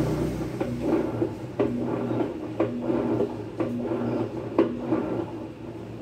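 Whirlpool Xpert System top-load washer agitating with no water in the tub during its automatic test cycle: the motor runs with a click about once a second, then winds down near the end.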